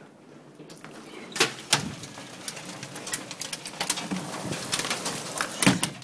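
Hail and rain pelting down: a dense, irregular patter of sharp hailstone strikes over the hiss of the downpour, growing louder about a second in.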